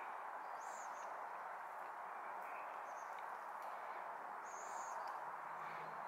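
Steady, even background noise with a few short, high bird chirps: one under a second in, another around three seconds in, and a longer one a little before the five-second mark.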